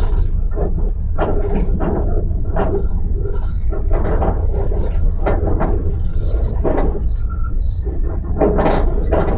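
Passenger train in motion heard from inside the carriage: a steady low rumble of the running gear on the track, with irregular knocks and rattles and a few short high squeaks.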